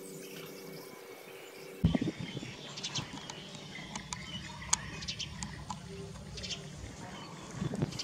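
A dog eating from a metal bowl: chewing with scattered sharp clicks over a low rumble. For the first couple of seconds there is only a steady low hum, which cuts off abruptly.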